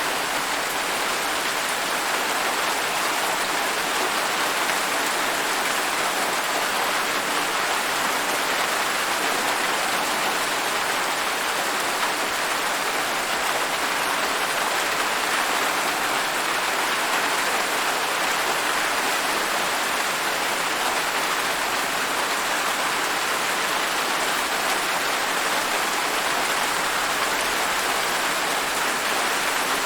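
Steady rain falling, a dense even hiss of many drops that keeps the same level throughout.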